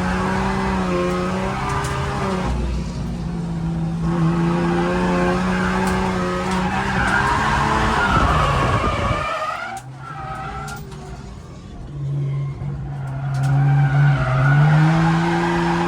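Ford AU Falcon drift car's engine held at high revs with tyres squealing in a slide. About nine seconds in the revs drop away sharply. They pick up and hold steady again a few seconds later, as the car links the next drift.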